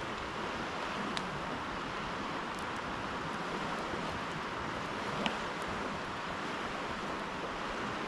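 Steady rushing of a swollen river, with two sharp pops from a wood campfire, about a second in and just after five seconds in.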